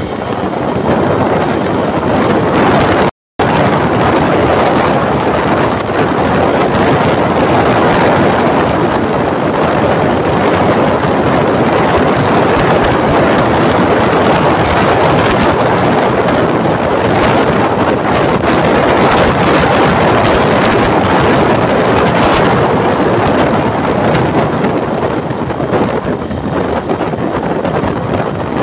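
Loud, steady rush of wind on the microphone of a motorcycle moving at speed, with road and motorcycle noise blended into it. The sound cuts out completely for a moment about three seconds in.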